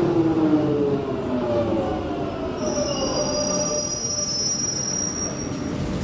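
London Underground 1996 Stock Jubilee line train heard from inside the carriage, its motor whine falling in pitch as it slows. A high wheel squeal joins about two and a half seconds in and lasts about three seconds.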